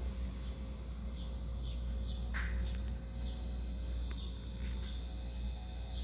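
Short high chirps from a small animal, repeating roughly once or twice a second, over a steady low hum.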